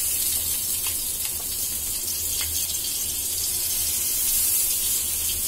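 Stuffed green chillies sizzling in a little mustard oil on a hot tawa over medium heat: a steady hiss, with a few faint taps as they are set down on the pan.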